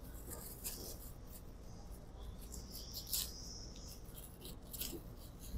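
Faint crinkling and rustling of a thin plastic wrapper being torn and peeled off a disposable fork, with small clicks and a sharper crackle about three seconds in.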